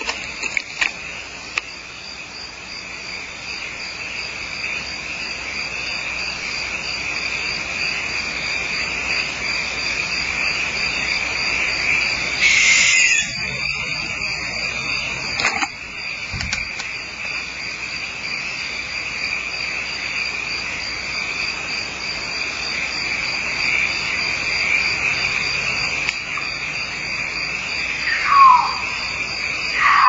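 Steady night chorus of insects with a constant high-pitched trill. There is a brief harsh burst of noise about 13 seconds in. Near the end comes a louder call that falls in pitch and is soon repeated, sounding like a large cat.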